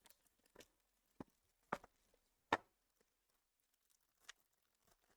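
Faint, sparse clicks and rustles of trading cards and their packaging being handled: about six short sounds, the loudest about two and a half seconds in.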